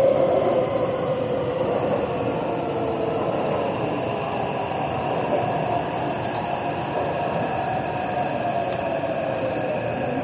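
Taipei Metro train running: a steady rumble of wheels and running gear, with a motor whine whose pitch slides lower early on and later rises again.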